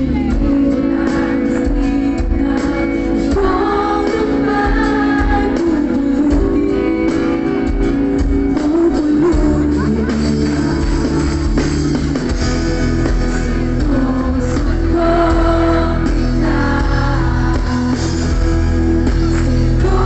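Live pop band playing with singing, over guitar and a strong, steady bass, heard from the crowd in front of the stage.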